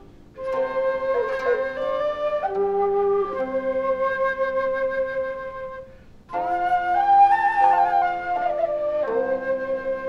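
Chinese bamboo flutes, end-blown like the xiao, playing a slow melody in long held notes. The phrases break briefly just after the start and again at about six seconds.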